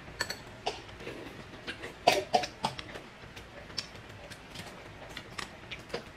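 Balut eggshells being cracked and picked apart by fingers and a spoon: scattered small cracks and clicks, with a denser cluster about two seconds in.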